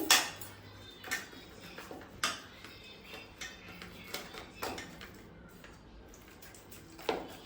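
Egg being grated on a hand grater: a series of short strokes against the grater, irregularly spaced about a second apart.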